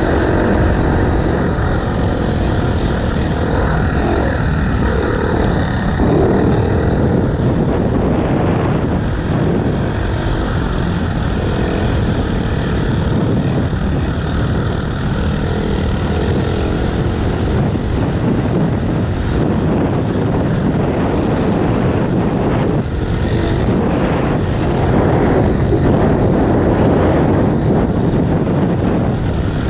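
Dirt bike engine running steadily under way while riding.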